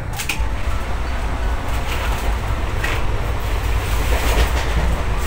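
Passenger train running, heard from inside the coach: a steady low rumble and wheel noise, with a few sharp clacks of the wheels over the rail joints.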